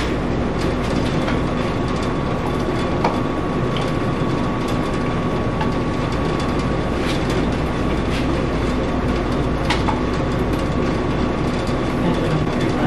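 Blender running steadily at high speed, blending a shake, with a faint steady whine and a few sharp ticks on top of the dense motor and blade noise.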